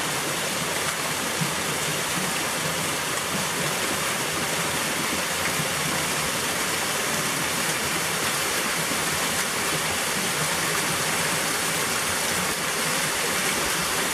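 Small stream waterfall: thin ribbons of water falling over rock and splashing into a shallow pool, a steady, even rush.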